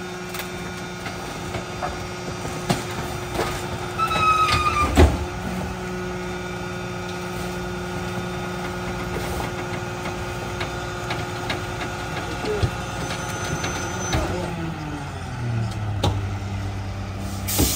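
Diesel engine of a Mack rear-loader garbage truck running at raised speed to drive the McNeilus packer hydraulics, with a brief squeal and a thump about five seconds in as trash goes into the hopper. Around fourteen seconds in the engine winds down to idle.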